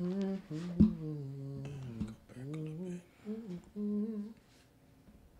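A man humming in several short wavering phrases with held and gliding notes, with a sharp click about a second in.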